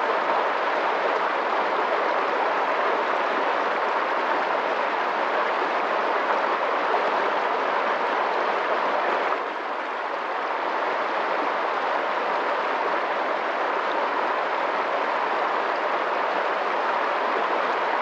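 Water flowing fast, a steady rushing hiss. It dips briefly about nine seconds in, then returns to the same level.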